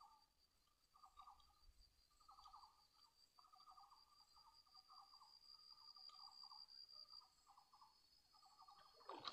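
Faint insect chorus: a steady high-pitched whine, with short pulsing trills repeating about once a second.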